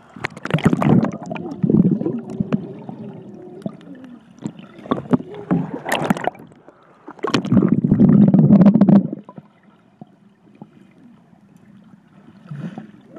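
Swimming-pool water splashing and churning around a camera held at the surface, in several loud bursts, the longest and loudest about two seconds long past the middle. It goes quieter and more muffled near the end as the camera dips under the water.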